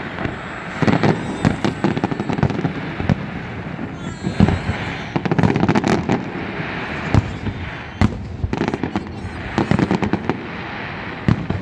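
Fireworks display: aerial shells bursting in quick succession, with dense crackling and popping between the louder bangs.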